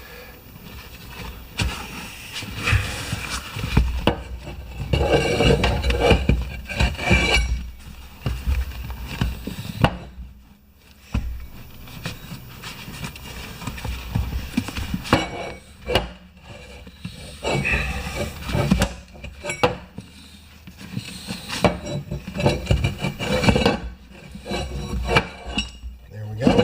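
Irregular rubbing and scraping with scattered knocks as an inner tube is worked out of a soaped small lawn-tractor front tire on its rim.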